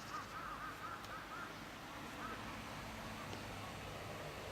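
Birds calling: a quick run of short, arching cries, thick in the first second and a half, then a few sparser ones, faint against a steady background hiss.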